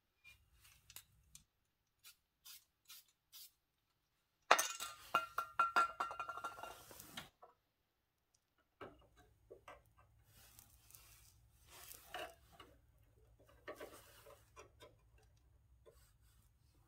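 Metal clinks and rattles as a small formed sheet-metal repair piece is handled and fitted into a pickup's rusted cab corner. A few light clicks come first; about four and a half seconds in there is a louder burst of clattering, ringing metal for nearly three seconds, followed by scattered taps and clicks.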